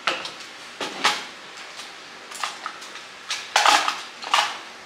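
Clicks and light clatter of small hard makeup items being picked up, set down and handled. The knocks come irregularly, with the loudest cluster about three and a half to four and a half seconds in.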